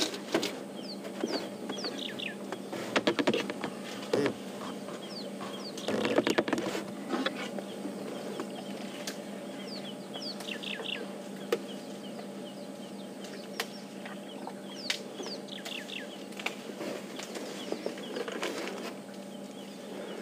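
A bird calling repeatedly in runs of short, quick descending whistles over a steady low hum. A few louder cracks and rustles come about three and six seconds in, as elephants break and strip branches of a felled marula tree.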